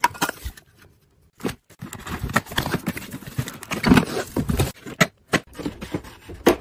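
Hands handling plastic household items and their cardboard packaging: a sharp tap, a short lull, then a busy run of rustles, clicks and knocks, loudest about four seconds in.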